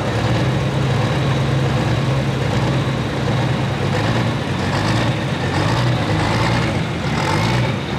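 Turbocharged 466-cubic-inch diesel engine of a New Holland Light Pro Stock pulling tractor idling steadily.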